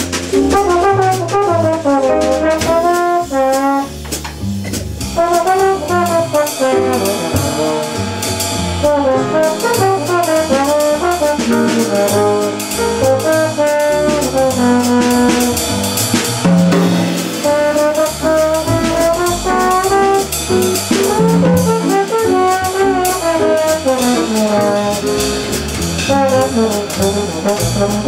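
Small jazz group playing live: a trombone carries a busy, moving melodic line over piano, upright bass and a drum kit with cymbals.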